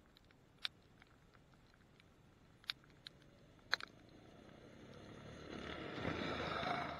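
A youth Arctic Cat ZR 120 snowmobile approaches and passes close by, its engine and track growing steadily louder from about halfway through to a peak near the end. A few sharp ticks come in the first half.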